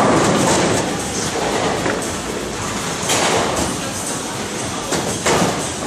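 Bowling alley din: bowling balls rumbling along the wooden lanes and ball returns, with pins crashing twice, about three seconds in and near the end.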